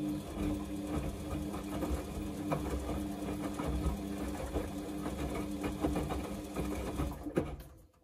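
Samsung front-loading washing machine turning its drum during the wash phase: a steady motor hum with wet laundry tumbling in the water, stopping shortly before the end as the drum pauses.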